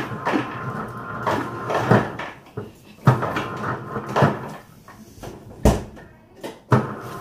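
Irregular clunks and clatters of a refrigerator freezer being opened and rummaged for ice, with one sharper knock late on.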